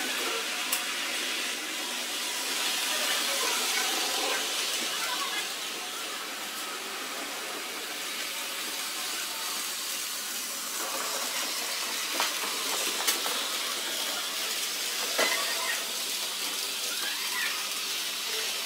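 Model railway trains running on the layout: a steady rolling hiss, with a few sharp clicks.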